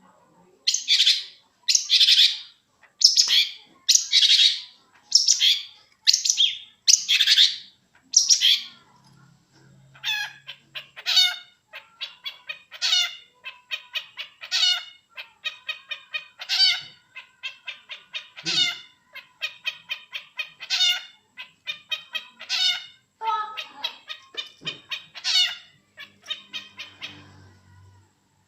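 Long-tailed shrike singing: about eight harsh, rasping calls roughly once a second, then a fast, varied chattering song of quick mixed notes that runs on in phrases.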